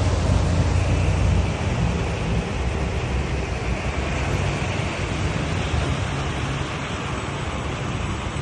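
Heavy rain pouring down in a steady, dense hiss, with a low rumble underneath that is strongest in the first second and a half.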